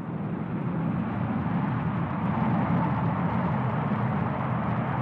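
Aircraft engines running with a steady rumble that swells over the first couple of seconds and then holds.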